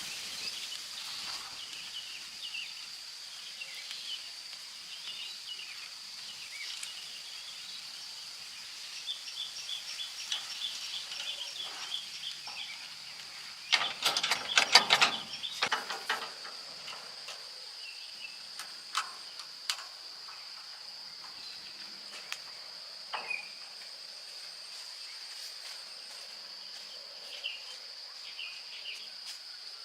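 Hand tools clicking and clinking on metal in quick bursts, loudest about halfway through, with a few single clicks later, over a steady high insect drone.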